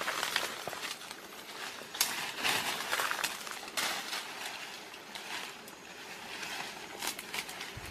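Leafy branches rustling and crackling as they are handled, in irregular bursts, the loudest about two to four seconds in.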